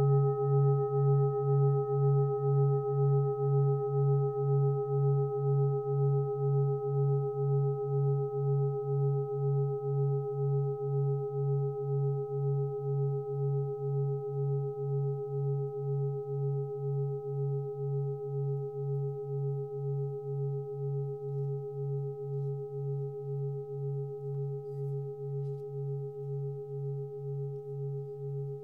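A 27.5 cm lingam singing bowl ringing out with a deep hum that pulses at an even rhythm, about one and a half beats a second, with several fainter higher overtones above it. The sound slowly fades.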